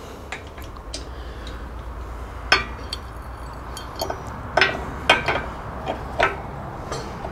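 Metal clinks and knocks of a Kawasaki KLE500 side stand and its pivot bolt being worked into the frame bracket: a handful of sharp, short-ringing strikes, most of them in the second half.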